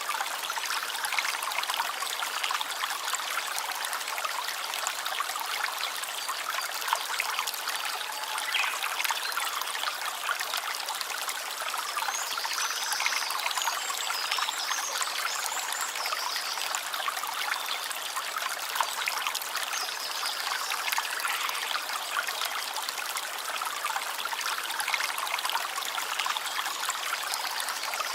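Running water of a small stream, trickling and splashing steadily without a break.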